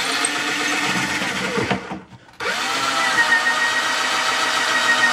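Electric drill turning a small bit on a long extension, boring up through the chair seat into the underside of a green ash chair arm. The drill runs steadily, stops about two seconds in, and starts again a moment later.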